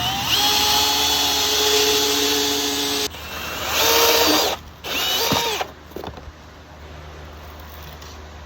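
Power drill cutting a hole in GoBoard foam backer board: the motor spins up and runs steadily for about three seconds, stops, then runs in two shorter bursts, the last winding down in pitch.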